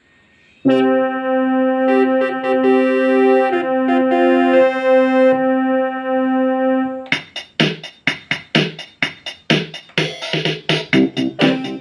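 Casio HT-3000 synthesizer keyboard starting up under a second in with a held, sustained chord while a few notes above it change. About seven seconds in it switches to a rhythmic pattern of short, choppy chords, like an auto-accompaniment groove.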